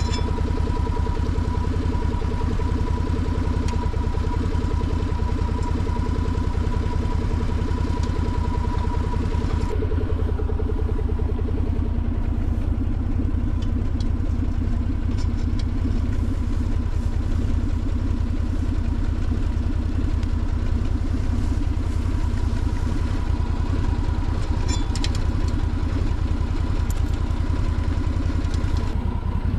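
Side-by-side utility vehicle's engine idling steadily.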